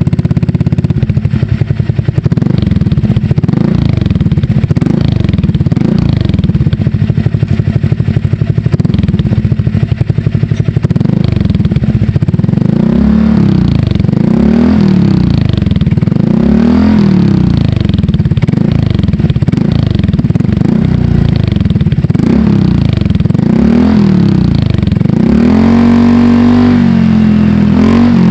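Honda Click scooter's single-cylinder engine through an SC Project exhaust fitted with a slip-in silencer, loud, idling steadily and then, from about halfway, revved in quick repeated blips, each rising and falling.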